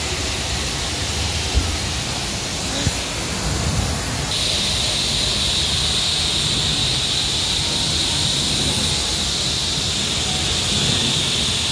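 High-pressure car wash wand spraying water onto a car, a steady hiss of spray. About four seconds in the hiss turns sharper and brighter and holds that way.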